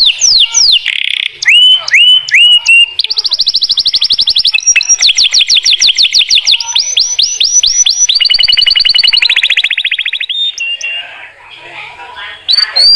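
Domestic canary singing a long, loud song of fast repeated phrases: quick downward-swept notes, then rapid trills and rolls, breaking off for a moment about ten seconds in before starting again near the end.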